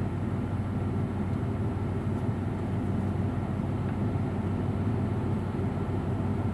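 Parked vehicle's engine idling, a steady low hum with no change in pitch.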